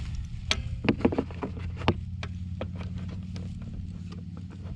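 Several sharp clicks and knocks from a wrench working a bolt on a plastic underbody cover, bunched in the first two and a half seconds, over a steady low hum.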